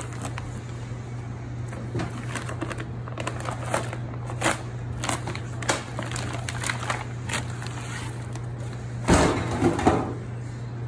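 Thick plastic vacuum-pack bag crinkling and rustling as it is cut open and peeled off a large raw beef rib section, with a louder burst of rustling and handling about nine seconds in. A steady low hum runs underneath.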